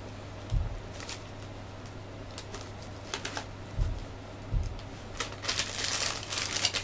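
Hands handling a plastic model kit figure: a few dull bumps and light plastic clicks, then plastic wrapping crinkling over the last second or so. A steady low electrical hum runs underneath.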